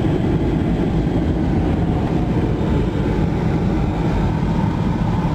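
Steady low road rumble inside a moving vehicle while driving.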